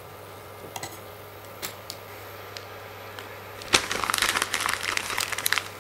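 Plastic food pouch crinkling and crackling as hands tear and work it open. A few light ticks come first, and the crinkling starts about two-thirds of the way in.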